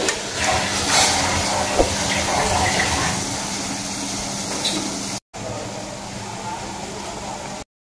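Water boiling in a metal pot with a block of instant noodles cooking in it: steady bubbling, with a sharp knock a little under two seconds in.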